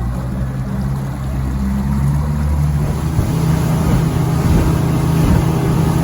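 Motorboat engine running steadily while the Shetland Alaska 500 is underway, with rushing water and wind noise over it; it gets a little louder and rougher about three seconds in.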